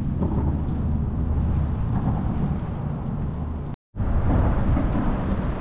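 Wind buffeting the microphone on an open boat, a steady low rumble broken by a brief gap of silence about two-thirds of the way through.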